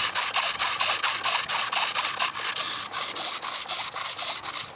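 Micro servos of a small RC jet's thrust-vectoring nozzles buzzing as they drive the nozzles back and forth, in quick, evenly repeated strokes of about seven a second.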